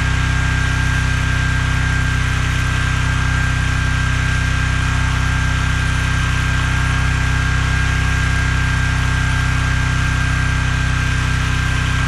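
Small engine of a towable backhoe trencher running at a steady speed, with an even hum and a steady high whine.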